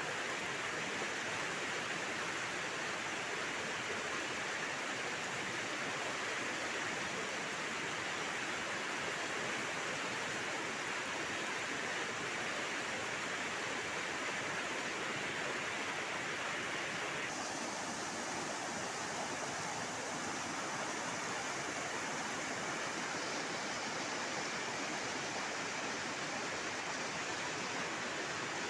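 Steady rush of flowing stream water over rocks, its tone shifting slightly about two-thirds of the way through.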